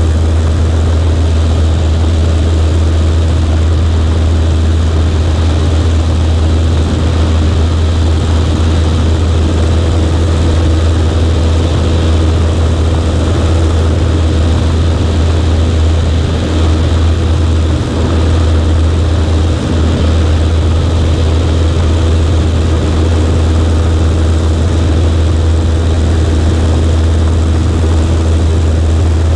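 Cessna 140A's small flat-four piston engine and propeller running at a steady, loud drone, with only a slight brief dip in level about two-thirds of the way through.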